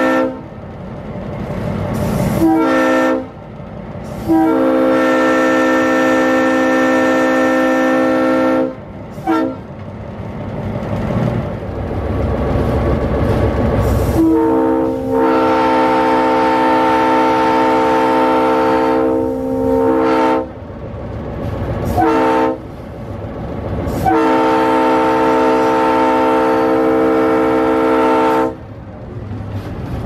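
Locomotive air horns sounding a series of long and short blasts. The first half is a Leslie RS3L three-chime horn, and a horn with a different chord sounds from about halfway through. A low rumble rises in the gaps between blasts.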